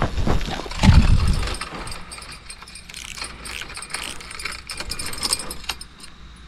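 Loud knocks and rustling of handling close to the microphone for about the first second and a half. Then lighter clicking and rattling as a spinning rod is picked up and its reel handled.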